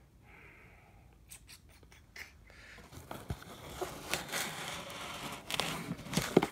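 Handling noise: rustling and scraping with scattered clicks, growing busier over the second half and ending in a sharp knock, as the recording phone is moved and propped in place.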